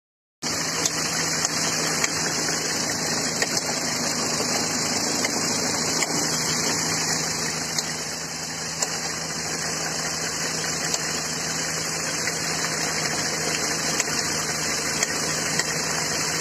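G4KD four-cylinder petrol engine idling steadily, with sharp irregular clicks over the running. The clicking is the rattle from the variable valve timing cam phasers that marks a failing phaser.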